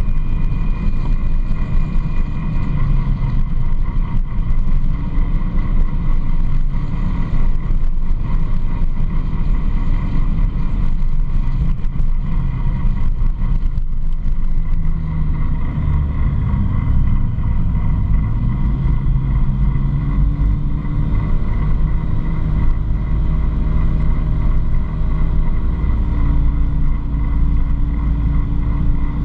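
Side-by-side UTV engine running as it drives along a gravel road, a steady loud drone mixed with tyre noise. The engine note climbs about two-thirds of the way through, then holds steady.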